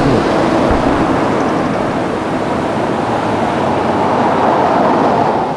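A car and a tour bus driving past close by on the road, a steady rush of tyre and engine noise that swells near the end and then drops away.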